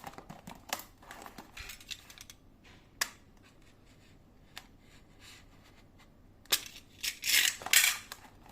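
A cardboard box being cut open by hand: scattered clicks and short scrapes, a sharp click about three seconds in, and a louder stretch of scraping cuts about seven seconds in.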